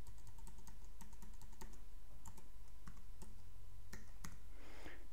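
Computer keyboard being typed on: quick, irregular key clicks, several a second, over a faint steady low hum.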